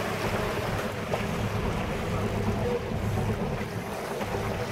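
Wind rushing over the microphone on a boat at sea, over a steady low boat-engine hum and the wash of water.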